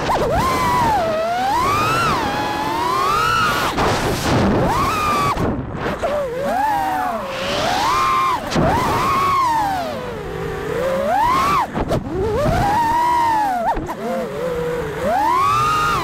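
FPV quadcopter's brushless motors and propellers whining in flight, the pitch sweeping up and down constantly with throttle and briefly dropping away a few times.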